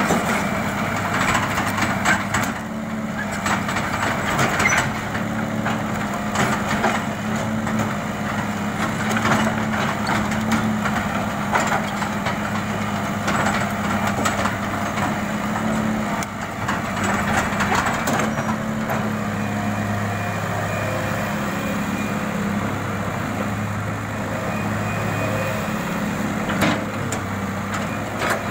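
Hitachi EX200-1 hydraulic excavator working: its diesel engine runs steadily while the bucket digs and swings soil, with frequent clatters and knocks of earth and steel throughout.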